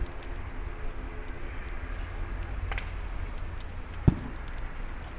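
Outdoor bonfire crackling, with scattered sharp pops over a low steady rumble. There is one loud thump about four seconds in.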